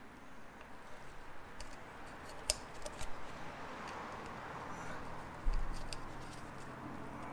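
Gloved hands handling a plastic oil filter housing while fitting its new rubber O-ring: a few light clicks and a dull knock about five and a half seconds in, over a faint steady hiss.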